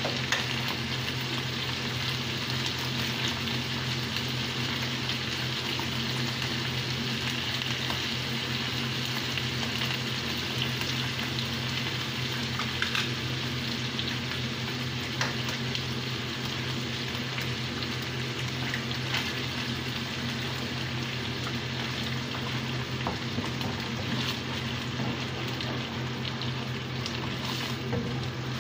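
Tuna and egg frying in a pan: a steady sizzle with scattered small pops.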